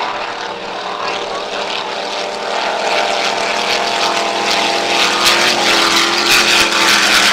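Offshore racing powerboat engines running at speed, a steady drone that grows louder as a boat passes close. A rushing noise joins over it in the second half.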